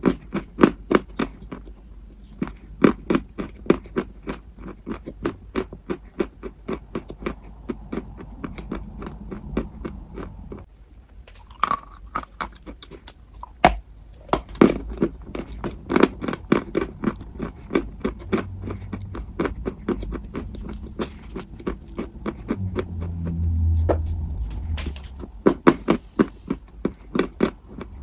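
Close-miked crunchy chewing: a steady run of crisp crunches, about three a second, pausing briefly around ten seconds in. A low hum rises under it a little past twenty seconds.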